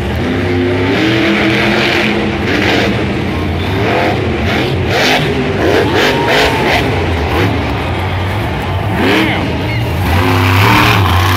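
Kraken monster truck's supercharged V8 engine revving hard, its pitch rising and falling again and again as the truck jumps and drives around the dirt course.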